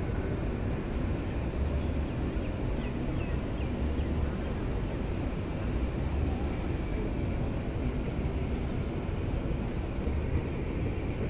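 Wind rumbling on the microphone over the steady hum of a busy open pedestrian plaza.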